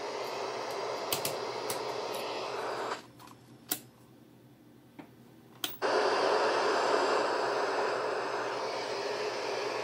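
Steady hiss of static, with a few light clicks; it cuts out for about three seconds in the middle and then comes back.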